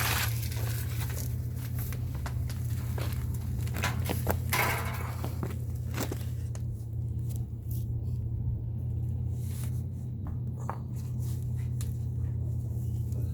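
Rustling, scraping and a few light knocks of someone moving and handling parts, over a steady low hum. The handling noises are busiest in the first six seconds and thin out after.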